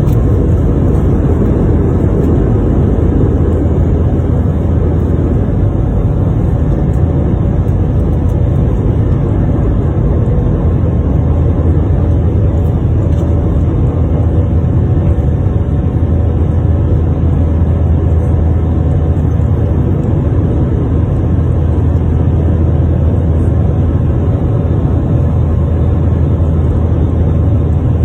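Airbus A319 jet engines running at high power during departure: a loud, steady low rumble that holds without change.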